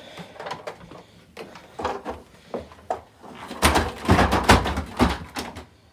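Dirt Devil vacuum cleaner thrown down a flight of stairs: a few light knocks at first, then about two seconds of loud bangs and clatter as it tumbles down and lands.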